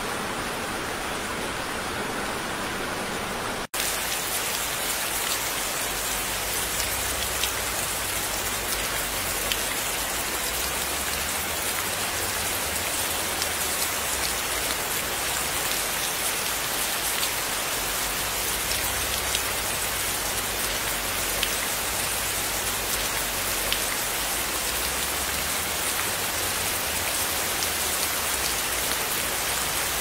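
Steady rain falling. About four seconds in, the sound cuts out for an instant and switches to denser rain splashing into standing water, with many separate drop ticks over a low rumble.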